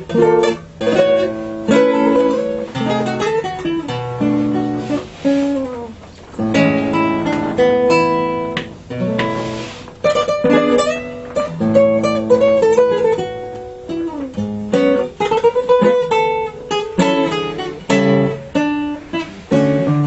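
Nylon-string classical guitar played fingerstyle: a plucked melody over bass notes and chords, played continuously.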